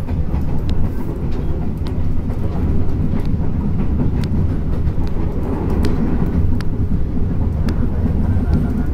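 Running sound of a Tokyu 8500 series electric multiple unit in motion, heard from on board: a steady low rumble of wheels and motors, with scattered sharp clicks from the running gear and track.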